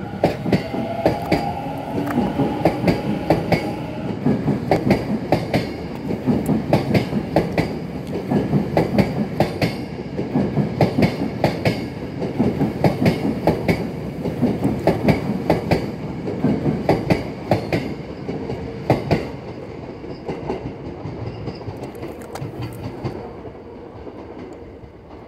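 Electric commuter train running past close by, its wheels clicking rapidly and evenly over the rail joints over a steady rumble; the clicking thins out and fades over the last few seconds as the train moves off.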